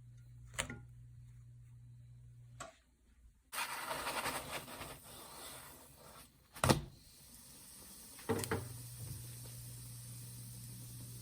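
Kitchen handling sounds: a few sharp knocks and a couple of seconds of rustling or scraping noise, over a steady low hum that stops for a while in the middle.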